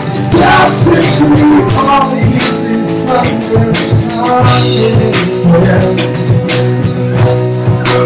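Live rock band playing: electric guitars and a drum kit with a steady beat, and a man singing over them.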